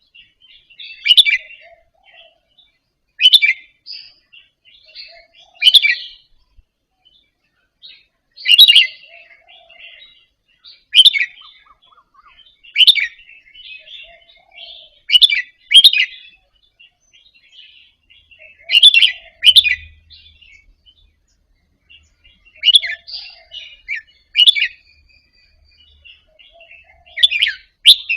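Red-whiskered bulbul singing short, bright song phrases about every two seconds, several given in quick pairs, the 'doubled' phrasing that keepers train for.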